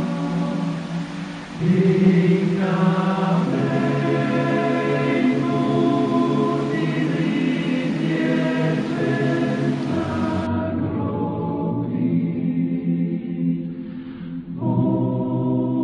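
Choir singing a cappella in sustained, slow-moving harmony. The music dips briefly about 14 seconds in before a new chord comes in.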